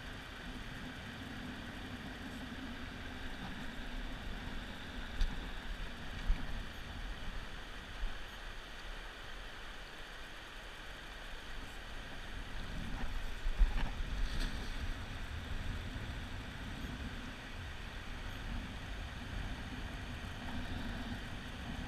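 Steady rush of shallow river rapids. A few low knocks and bumps break through at about five, six and eight seconds in, and again around thirteen to fourteen seconds in.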